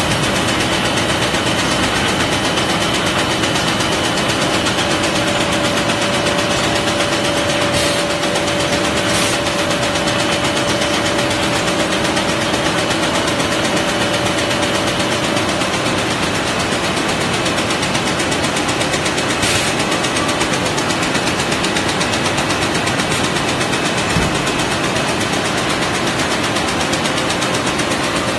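A4 paper sheeting and ream-wrapping machine running: a steady, fast mechanical clatter over a continuous hum, with a few sharper clicks.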